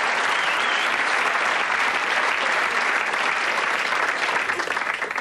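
Audience applauding, a steady dense clapping that eases off slightly near the end.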